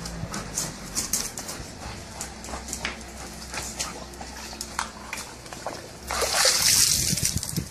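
German Shepherd splashing water in a plastic bucket. Light splashes and clicks come first, then a loud splash about six seconds in that lasts over a second.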